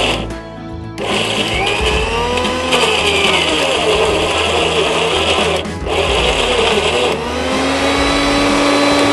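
Electric mixer grinder with a stainless-steel jar grinding cooked prawns and roasted gram into vada batter. The motor runs in pulses: a short burst at the start, a long run from about a second in, a brief cut near the middle, then running on. Its whine rises and falls as the load shifts.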